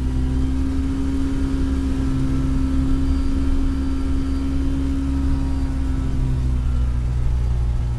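Rotax 582 two-stroke twin engine of a Kitfox Model 2 light aircraft running steadily at taxi power, heard from inside the cabin, its pitch holding nearly constant.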